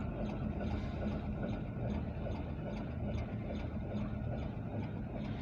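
An engine running steadily with a low hum, with a faint regular ticking about twice a second.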